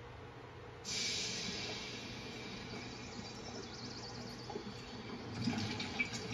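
DVD menu transition sound effects played through a TV speaker: a sudden hiss like escaping steam comes in about a second in and holds, with low rumbling and a click near the end.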